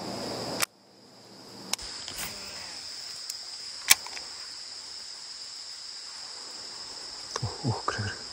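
Steady high-pitched chirring of insects, with a few sharp clicks from handling a baitcasting rod and reel. A low rushing noise cuts off abruptly under a second in.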